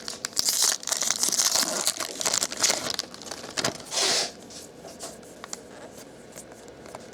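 Crinkly foil wrapper of a trading-card pack being torn open and crumpled, a rapid run of rustling crackles for about three seconds and one more short burst about four seconds in, then only faint handling.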